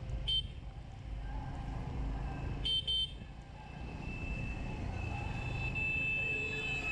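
Short vehicle-horn toots, once just after the start and then a quick double toot about three seconds in, over the steady low rumble of a motorcycle under way. A faint steady high whine comes in about halfway through.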